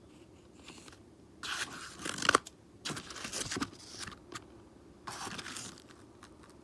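Three bursts of crinkling, scraping handling noise with a few sharp clicks, the loudest about two seconds in.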